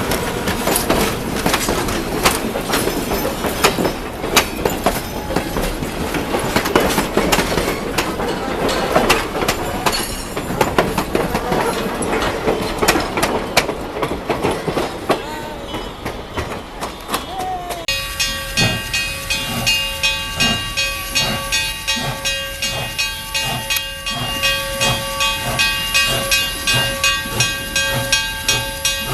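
Steam train running: a dense clatter of wheels and rods with many sharp clicks. About two-thirds of the way in the sound changes abruptly to steady ringing tones over a regular beat about twice a second.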